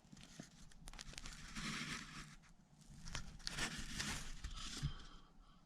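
Irregular scrubbing and rustling noises in swells a second or two long, with a few sharp clicks and knocks, from a chainsaw being cleaned by hand.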